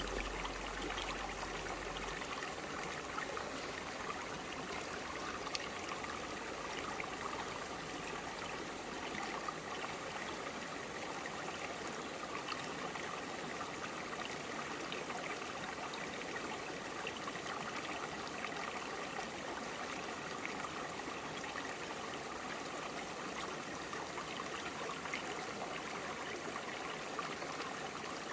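Shallow forest stream flowing over broad rocks: a steady babble of running water with many small splashes and trickles.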